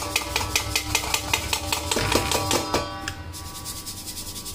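Fine-mesh stainless-steel sieve shaken in a steel bowl to sift coarsely ground yesur spice mix: a quick run of light metallic taps and rattles, about six a second, with the steel ringing under them. The taps get fainter about three seconds in.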